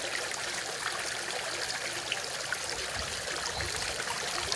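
Fountain water running steadily into its pool, a continuous even trickle.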